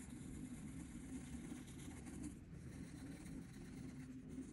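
Colorless blender pencil rubbing over layered colored pencil on paper, blending the colors: a faint, steady scratching of pencil on paper.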